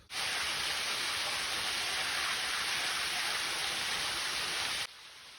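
Small waterfall: a steady, even rush of falling water that starts abruptly and cuts off suddenly near the end.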